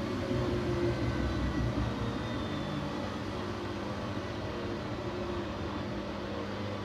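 Siemens Siwamat IQ 716 washing machine running: a steady mechanical hum from the motor and drum, with a low rumble that eases a little after about three seconds and a few faint whining tones.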